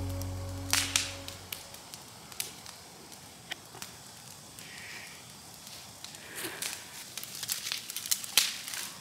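Burning brush pile crackling and popping, with sharp pops about a second in and a dense run of them near the end. A fading tail of acoustic guitar music dies away in the first second or so.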